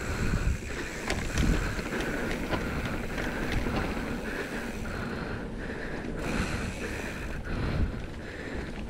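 Mountain bike descending a dirt downhill trail: wind buffeting the microphone and tyres rumbling over the ground, with scattered knocks and rattles from the bike over bumps.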